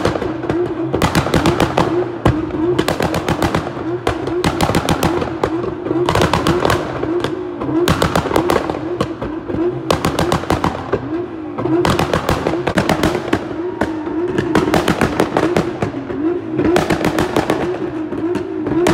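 Nissan GT-R R35 and Seat Leon Cupra revving while stationary, their pop-and-bang exhausts firing rapid crackling pops and bangs. The bangs come in repeated clusters about a second apart, over a steady held engine note.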